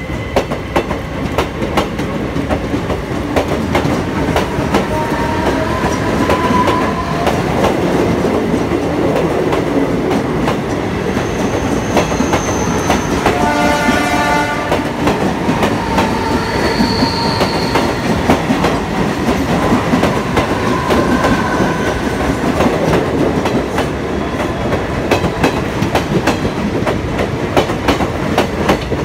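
Indian Railways ICF passenger coaches running past at speed, their wheels clattering rapidly over the rail joints. A few short wheel squeals come through the clatter, and a short horn blast sounds about halfway through.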